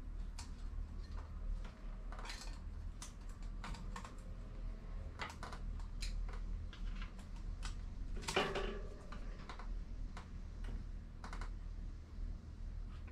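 Scattered light clicks and taps of hand tools and bicycle drivetrain parts being handled, at an irregular pace, with one louder metallic clink and a brief ring about eight seconds in. A steady low hum runs underneath.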